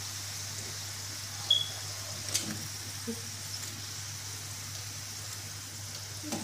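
Hot oil sizzling steadily around battered snake gourd rings deep-frying in a pan, with a couple of light metal clinks from tongs and a wire-mesh strainer, one about a second and a half in and another about a second later.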